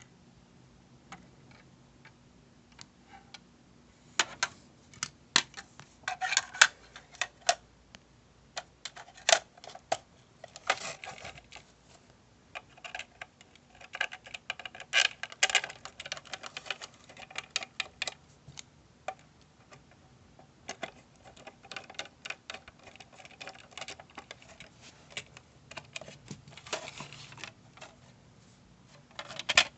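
Irregular clicks, knocks and rattles of hard objects being handled, coming in clusters from about four seconds in, with a few pauses between them.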